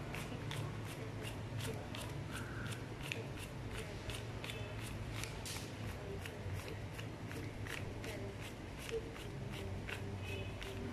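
Peso banknotes being counted by hand: a long run of quick, crisp paper flicks, a few each second, as the bills are thumbed off the stack one by one.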